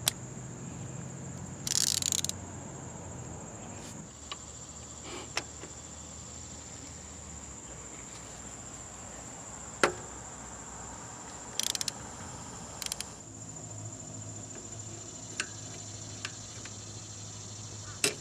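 A steady high trill of crickets, with scattered sharp metal clicks and short clatters from a ratchet and crowfoot flare-nut wrench working the power steering high-pressure line fitting.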